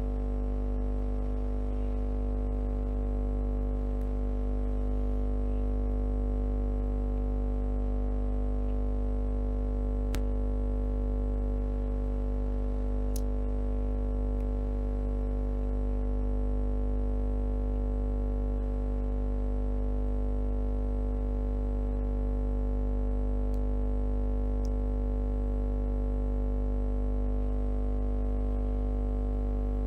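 A steady, unchanging buzzing hum made of many held tones, heaviest in the low bass, with a few faint clicks over it.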